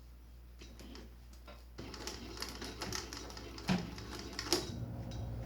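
Industrial walking-foot sewing machine starting to stitch about two seconds in, a fast run of needle-stroke clacks with a few louder knocks as it climbs over thick nylon webbing, and a steady motor hum joining near the end.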